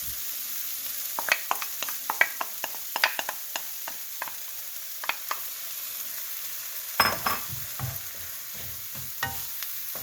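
Onions, peppers, garlic and ginger sizzling in a skillet with the sauce just added, while a utensil stirs, tapping and scraping against the pan in a run of sharp clicks. About seven seconds in, heavier, lower knocks join in.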